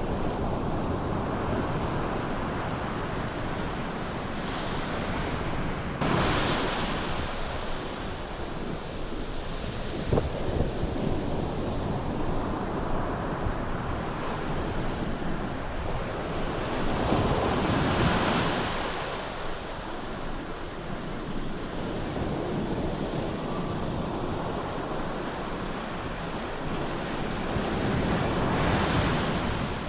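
Ocean surf: waves breaking and washing up a sandy beach, a steady rushing hiss that swells into louder breakers about six, seventeen and twenty-nine seconds in.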